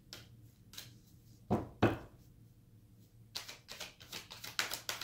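Tarot cards being handled on a table: two sharp knocks about a second and a half in, then a quick run of light taps and clicks near the end.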